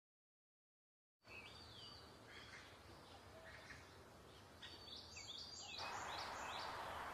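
Small birds chirping faintly over outdoor background hiss, with a burst of quick chirps about two thirds of the way in. It starts after about a second of dead silence, and the hiss grows louder shortly before the end.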